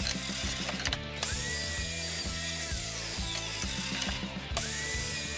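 Background electronic music with a steady beat, stepped bass notes and a repeating swooping synth sweep.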